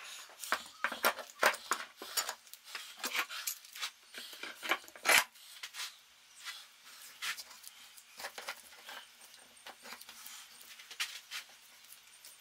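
Steel bar clamps being slid and tightened onto a stack of timber blocks: irregular metallic clicks, clacks and rattles, busiest in the first half, with a sharp knock about five seconds in.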